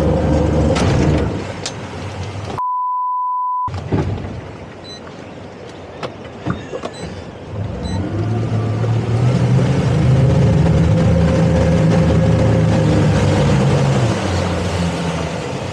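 Twin outboard motors on a towboat running hard under tow load, then throttled back about a second and a half in as the towline snaps. About two and a half seconds in, a one-second censor bleep cuts out all other sound. The outboards then run up hard again from about eight seconds and ease off near the end.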